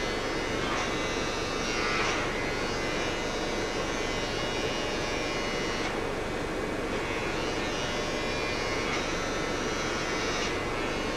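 Background music: a dense, steady droning instrumental passage with no singing.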